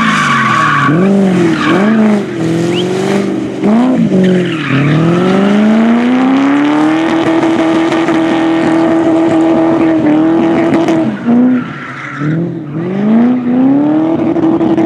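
Drift car engine revving hard, its pitch swooping up and down several times with throttle lifts and shifts, then a long climb held steady for a few seconds before dropping away. Tyres screech briefly at the start and again about twelve seconds in as the car slides.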